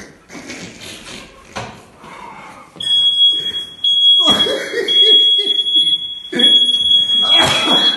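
Smoke detector sounding a steady, high-pitched alarm tone that starts about three seconds in and breaks off briefly twice. It has been set off by tyre smoke from a motorcycle burnout indoors.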